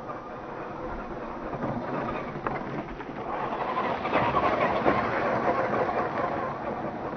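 Tamiya CC-01 Unimog radio-controlled truck's electric motor and gears whining, with its tyres running over stony dirt. The sound grows louder as the truck passes close about four seconds in, then fades as it drives away.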